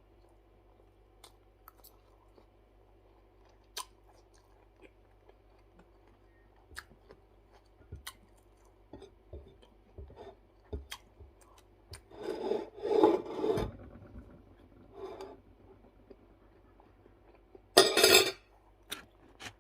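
Close-up eating sounds: scattered small clicks of chewing and handling, with a louder rasping scrape about twelve seconds in and a shorter one near the end.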